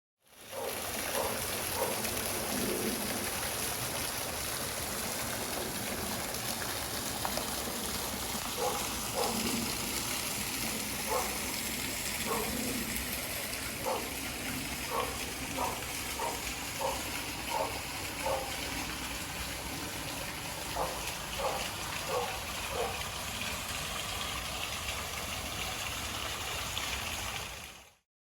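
Garden waterfall rushing steadily. Through the middle, a run of short pitched calls repeats about once or twice a second over the water.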